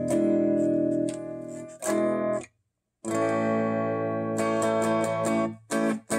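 Electric guitar, a Mustang with two P90 pickups, strumming clean chords through channel two of a Peavey XR 680C PA/mixer amp. The chords ring, stop briefly about two and a half seconds in, then another chord rings until near the end. The channel passes its post-cleaning sound test: "so far, so good."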